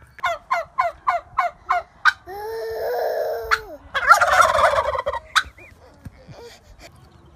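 Turkeys gobbling: a fast run of short calls, then a longer drawn-out call. About four seconds in comes a loud, harsh burst of sound.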